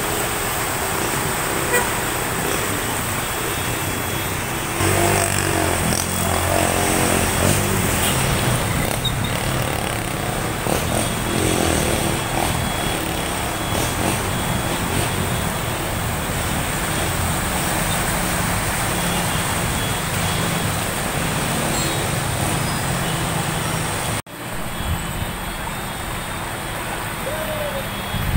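Road traffic pushing through flood water: motorcycle and car engines running over a steady wash of noise, with a horn-like pitched tone sounding about five seconds in.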